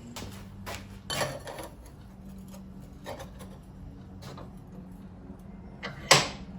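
Scattered clinks, scrapes and rubs of a steel exhaust header connector being handled and clamped in place, with one louder brief scrape near the end.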